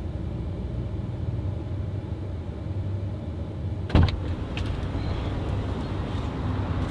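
Steady low rumble of a pickup truck idling, heard from inside the cab, with a sharp click about four seconds in as the cab door is unlatched and opened, followed by a few lighter clicks.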